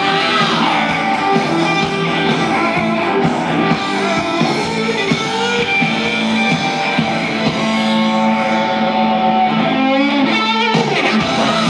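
Live hard-rock band playing loud, with an electric guitar lead over the band bending its notes and a rapid trill about ten seconds in.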